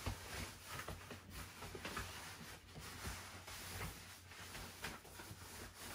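A black PVC fitted bed sheet rustling and crinkling faintly as it is pulled and tucked in at the mattress edge, in small irregular scrapes. A low steady hum runs underneath.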